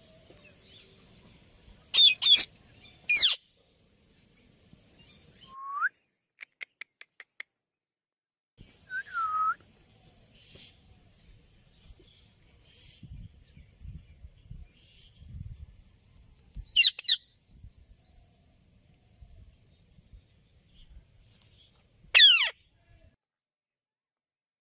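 Indian ringneck parakeet calling: loud, harsh screeches, two or three in quick succession about two seconds in, another about two-thirds of the way through and one more near the end. Between them come a short rising whistle, a quick run of five clicks and a brief whistle.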